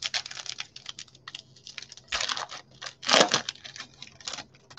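Football trading cards being flicked and shuffled through by hand: a quick, irregular run of light card clicks, with two louder rustles about two and three seconds in.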